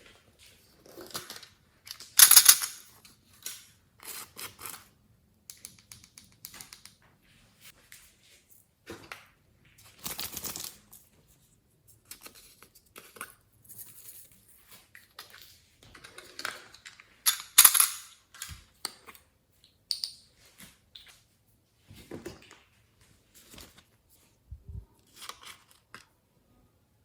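Glossy slime being squeezed and stretched by hand: irregular sticky clicks and crackles with short pauses between them, the loudest about two seconds in and again near seventeen seconds.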